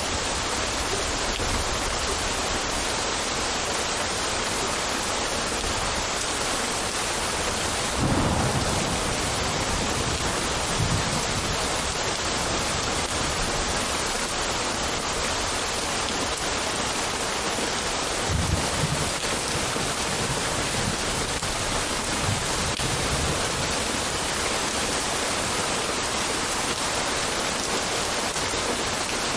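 Steady rain in a thunderstorm, with low rumbles of thunder: one about eight seconds in, another about eighteen seconds in, and fainter ones between and after.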